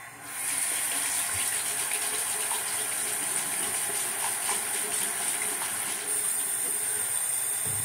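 Bathroom sink tap turned on, water running steadily into the basin.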